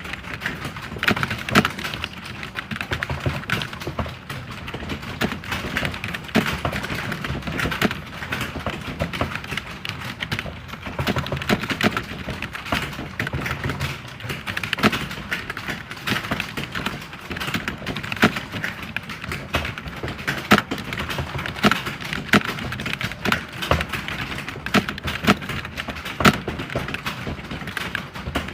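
Computer keyboard being typed on continuously: a rapid, uneven stream of key clicks with occasional louder strokes.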